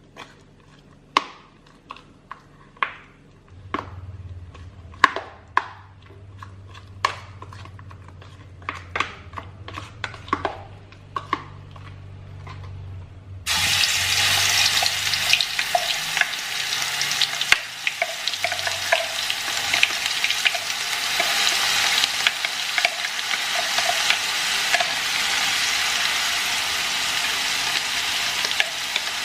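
A spoon knocking and scraping in a pan, about a dozen sharp ringing taps over the first half. About halfway through a loud sizzle starts suddenly as the rendang spice paste sautés in hot oil, with stirring going on through it.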